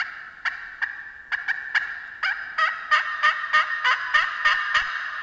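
Slate turkey pot call from Hooks Custom Calls worked with a striker, playing a run of turkey yelps that quickens from about two to about four notes a second over a steady high squeal. The calling is a little rusty.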